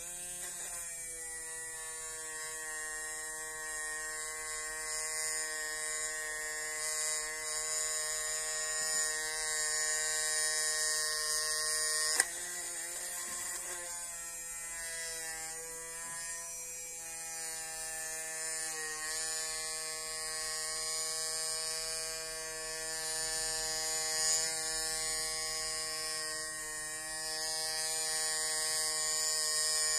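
Small homemade DC-motor mini drill with a brass chuck whining steadily as its fine bit drills into a plastic sheet. About twelve seconds in there is a sharp click and the whine drops in pitch under load, then climbs back over a couple of seconds as the motor speeds up again.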